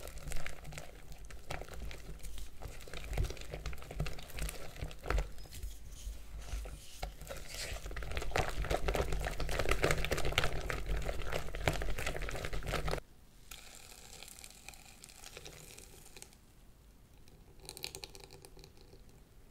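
Close-up baking prep sounds: dense crinkling and crackling with small clicks, which cuts off abruptly about two-thirds of the way through. Quieter, sparser handling sounds follow.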